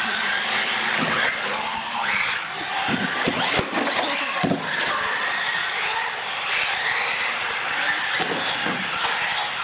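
Several radio-controlled UTV models racing on a concrete floor: small motors whining up and down in pitch as the throttles change, with tyres scrubbing and a few light knocks.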